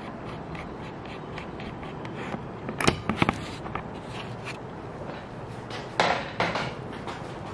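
Homemade egg turner's small geared motor running under a steady hiss, with light clicking as the linkage tilts the egg rows. Two short clusters of louder clacks and knocks come about three seconds in and again about six seconds in.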